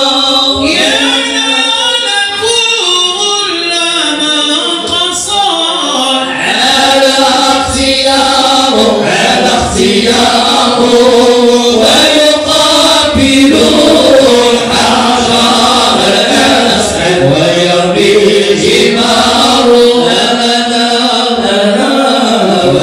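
A group of men chanting Sufi devotional hymns in praise of the Prophet (madih and dhikr) together, unaccompanied. The melody winds continuously without pause.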